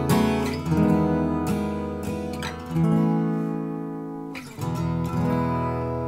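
Epiphone Masterbilt J-45 slope-shoulder acoustic guitar, solid Sitka spruce top with solid mahogany back and sides, strummed in a run of chords. The last chord, about five seconds in, is left to ring and slowly fade.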